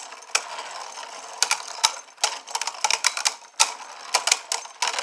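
Beyblade spinning tops battling: a steady high scraping hiss of the spinning tops, broken by many sharp, irregular clacks as they collide.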